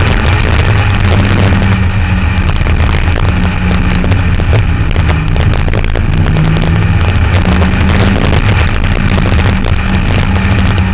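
Open-top sports car running at road speed with its top down: a steady engine drone that shifts pitch slightly a few times with the throttle, under heavy wind and road noise.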